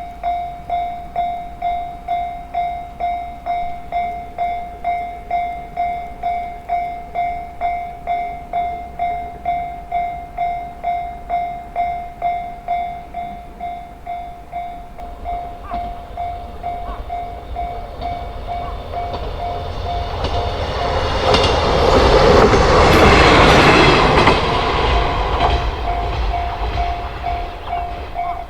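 Railroad crossing alarm ringing its 'kan-kan' tone about twice a second throughout. A train approaches and passes, loudest about three-quarters of the way in, then fades while the alarm keeps ringing.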